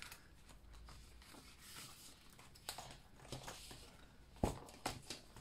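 Prop paper bills rustling as they are taken out of a cash binder and handled, with scattered soft clicks and one sharper click about four and a half seconds in.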